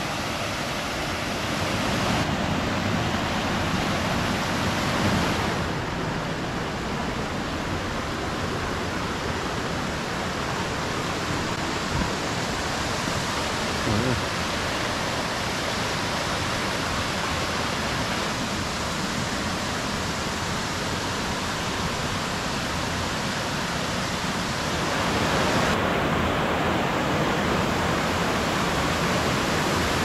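Steady rush of water from waterfalls and a rocky mountain stream. Its tone changes abruptly about 2, 6 and 26 seconds in.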